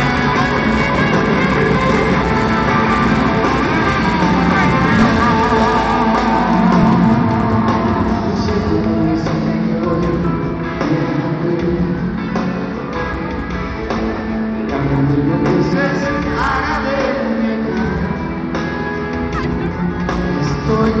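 Live pop-rock band playing with a male singer, heard from the arena stands with the hall's reverberation.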